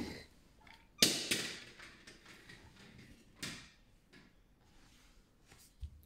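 Toys being handled on a tabletop: a sharp knock about a second in, then quiet rustling, a second short noise, and a few faint clicks near the end.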